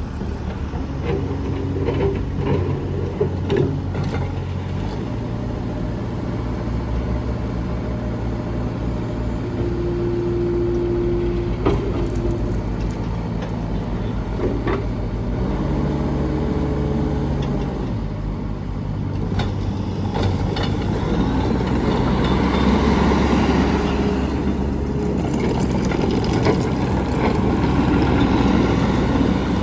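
2022 New Holland C332 skid steer loader's diesel engine running, its speed stepping up and down several times. In the last third it gets louder and rougher, as under working load.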